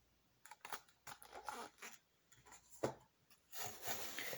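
Faint handling of packaging and items in a gift box: scattered light clicks and knocks with short bursts of rustling, getting denser near the end.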